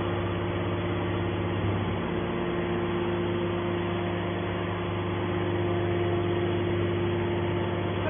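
Hydraulic power unit of a scrap metal baler, electric motor and pump running with a steady hum and a held tone, as the hydraulic cylinder lifts the baler's lid.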